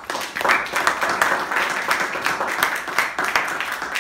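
A small audience clapping steadily, a dense patter of many hand claps.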